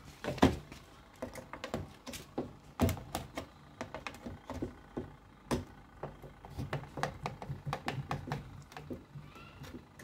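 Screwdriver working at a joint in a washing machine's plastic body: irregular clicks, knocks and scrapes of the metal tool against the plastic, with louder knocks about half a second in and near three seconds.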